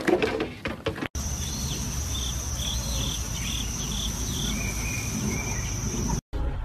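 A second of knocking clatter. Then a steady high insect trill, like crickets, with a run of short chirps a little lower in pitch over a low outdoor rumble, until it cuts off near the end.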